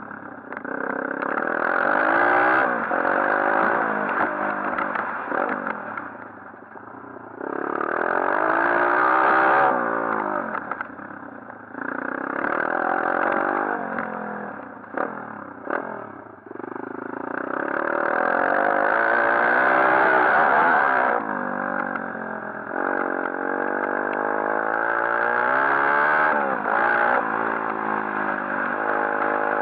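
140cc pit bike's single-cylinder four-stroke engine, ridden hard: it revs up in repeated climbs in pitch and drops back each time the throttle is shut off, several times over.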